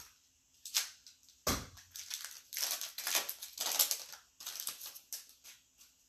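Foil wrapper of a Select baseball card pack crinkling as it is torn open by hand, with a dull thump about a second and a half in.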